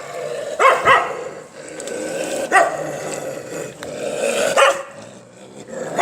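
Stray puppies barking: a few short, high-pitched barks, two close together about a second in, then single barks about two seconds apart.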